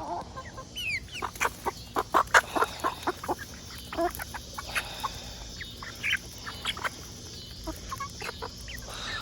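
Backyard chickens clucking and squawking in excitement as they crowd in for treats, with a dense run of short calls over the first few seconds that thins out toward the end.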